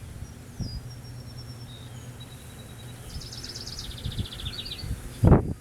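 A songbird singing: a few thin, high whistled notes, then a fast trill of repeated notes. A low steady hum runs under the first half, and a loud dull thump comes near the end.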